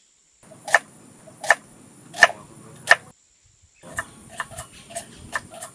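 Knife chopping an onion on a wooden cutting board, the blade knocking into the wood. Four sharp chops come about three-quarters of a second apart, then after a short pause a quicker run of lighter chops follows near the end.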